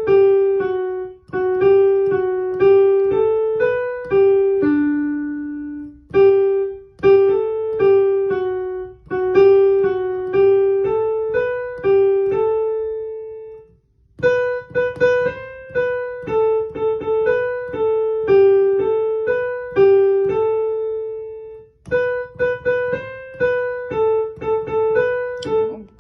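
Piano playing a simple single-note melody in G major, the right-hand part of a beginner exercise, in short phrases that each end on a held note.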